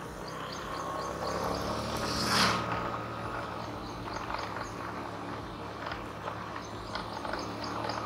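Outdoor ambience: a steady low rumble with repeated short high chirps, several a second, in the second half, and a brief rushing whoosh about two and a half seconds in.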